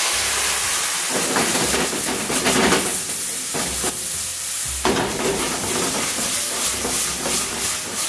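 Marsala wine sizzling and hissing loudly in a hot pan of sliced mushrooms as it flares up, with knocks and scrapes of the stainless steel pan being moved on the gas burner grate.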